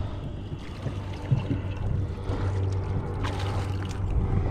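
Wind buffeting the microphone over a steady low rumble, with water moving around a small boat's hull.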